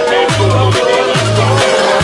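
Electronic dance music with a steady beat and a bass line whose notes slide down in pitch.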